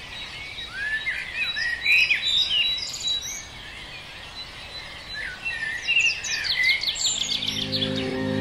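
Dawn chorus birdsong: several songbirds singing at once, with a quick run of repeated high notes near the end. Music with steady low notes comes in about seven seconds in.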